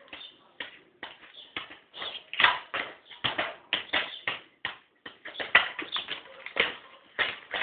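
Football being kicked against a concrete wall again and again: a string of sharp thuds, about two a second, each with a short echo.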